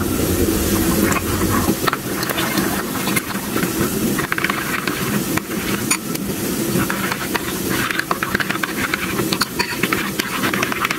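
Spatula stirring a runny mayonnaise sauce in a bowl: continuous wet sloshing and scraping.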